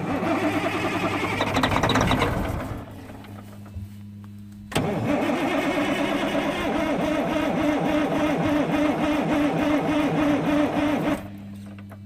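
Freightliner FLD120 truck's diesel engine being cranked by its starter in two tries, a short one of about three seconds and then a longer one of about six seconds, turning over rhythmically without catching. The men suspect air still in the fuel lines to the injectors.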